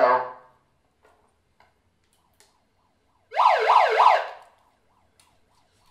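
Handheld megaphone's built-in siren giving a fast rising-and-falling wail, about four cycles a second. It is faint at first, swells loud for about a second a little past three seconds in, then fades.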